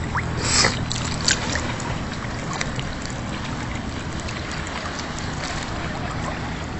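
Sea water sloshing and splashing close to the microphone, with wind noise and a low steady hum underneath. Two short, louder splashes come about half a second in and just after one second.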